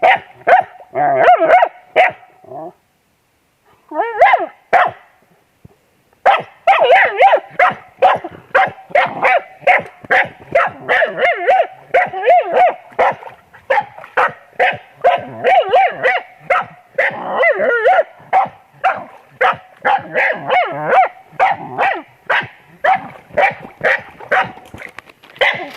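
Dogs barking rapidly and excitedly, several barks a second, breaking off briefly twice in the first six seconds and then barking without a break.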